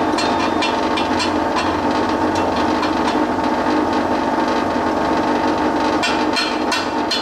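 Rapid hand-hammer taps on the freshly welded crack in a cast-iron drill table, about five strikes a second, clearest at the start and again from about six seconds in. Under the taps runs the steady hum of the stick welder's cooling fan.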